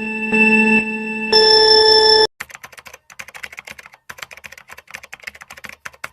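An electronic telephone ringtone, a pulsing tone that jumps to a higher pitch just over a second in and stops about two seconds in. Then fast, irregular clicking of typing on a computer keyboard for about four seconds.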